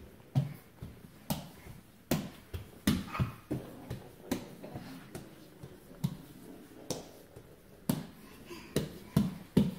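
A crawling baby's hands slapping on a laminate floor: a string of short, sharp pats, irregular, about one a second.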